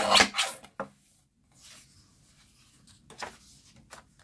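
Mini paper guillotine's lever blade pressed down through a sheet of patterned card: a brief, loud cutting sound in the first half-second. A single sharp click follows just under a second in, then faint rustling of the paper being handled.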